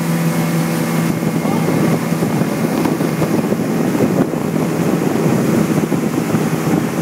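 Motorboat engine running steadily at towing speed, one unchanging pitch, over the rushing hiss of the wake and wind on the microphone.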